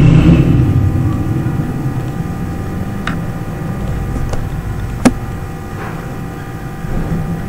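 Steady low rumble and electrical hum of the recording room, with three or four sharp clicks a little after the middle, the loudest about five seconds in: computer mouse clicks while shapes are dragged in a drawing program.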